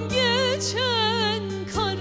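A Turkish folk song (türkü) sung by a woman in a wavering, ornamented melody over steady instrumental accompaniment.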